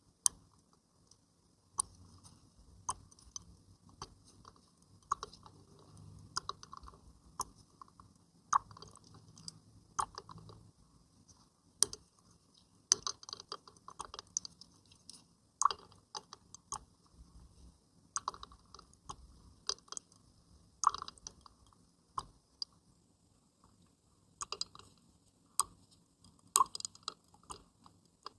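Water being played with by hand close to the microphone: irregular small splashes, drips and plops, several a second.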